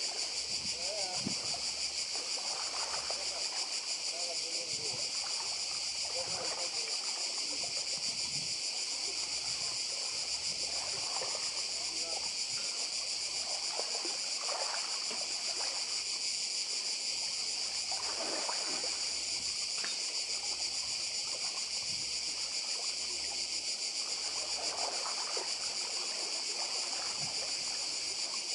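Cicadas singing in a steady, unbroken high-pitched chorus, with small waves lapping more quietly on a pebble shore underneath.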